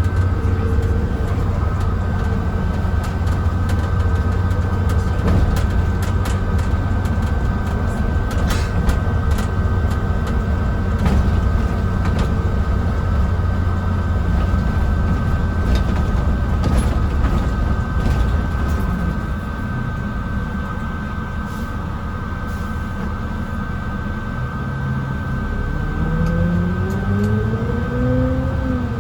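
Mercedes-Benz O307 bus heard from inside the passenger saloon: a steady low rumble of the diesel engine and the road, with a steady whine from the saloon heaters and scattered rattles. Near the end the engine note rises for a few seconds and then drops away.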